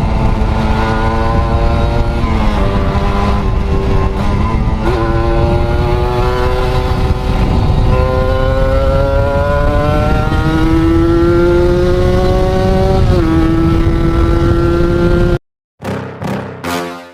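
Kawasaki Ninja RR 150cc single-cylinder two-stroke engine, running on a Mikuni VM28 carburettor. Its note climbs slowly and drops sharply several times. The engine sound cuts off suddenly near the end and music with a beat takes over.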